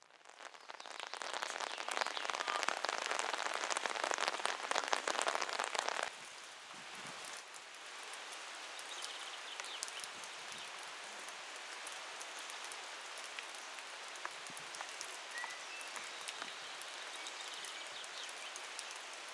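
Rain falling, a dense patter of drops. It is louder for the first six seconds or so, then turns softer and even.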